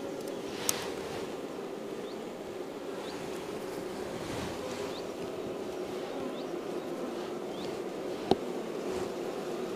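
Honeybees buzzing in a steady hum over an opened nucleus hive as its frames are lifted out, with two sharp knocks from the hive tool and wooden frames, one about a second in and a louder one near the end.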